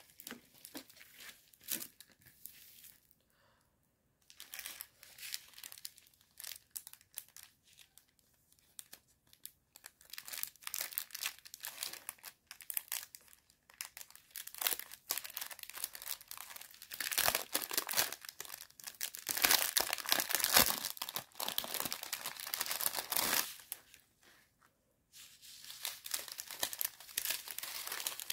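Clear plastic packaging of a diamond painting kit crinkling and rustling as hands handle it: the canvas's plastic wrapping and the small plastic bags of drills. The crackling comes in irregular spells, loudest a little past the middle, with brief pauses.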